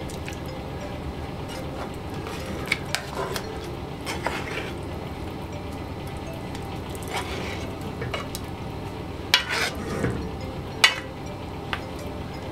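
Metal ladle stirring a thick stew in a large metal pot, with soft scrapes and scattered clinks against the pot, the loudest knocks about nine and a half and eleven seconds in.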